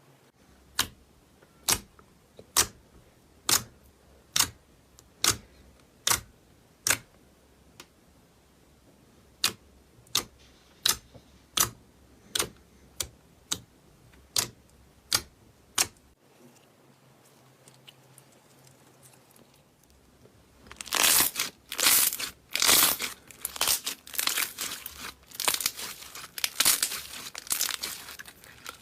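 Slime being handled: a regular run of sharp pops about once a second for the first half, then after a pause a dense stretch of crackling and crunching.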